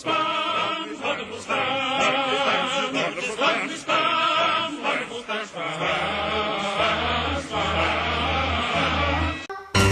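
Music with operatic, choir-like singing; a steady low bass note joins about six seconds in.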